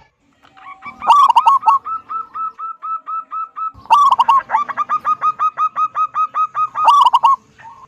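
Zebra dove (perkutut) singing: two phrases, each opening with a loud burst of short hooked cooing notes followed by a long, even run of rapid staccato notes.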